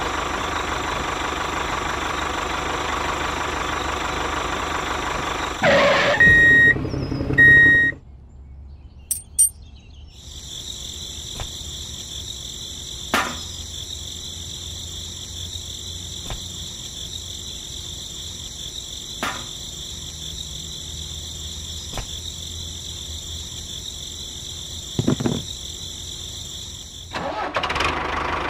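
A miniature model tractor's small motor running. About six seconds in it gives way to a short loud stretch with a steady beep. After a quieter pause comes a steady high whine with a few scattered clicks, and the motor noise returns near the end.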